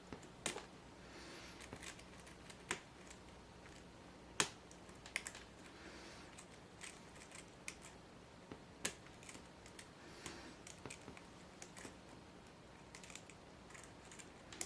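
Lock picks and a tension wrench working the pins of a Grainger 1XRV5 padlock's Yale-type keyway: light, scattered metallic clicks and ticks at irregular gaps of about a second, with faint scraping between them.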